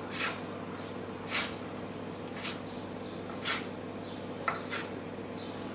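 Metal bench scraper chopping through bread dough and knocking on the countertop, a short chop about once a second over a steady low hum.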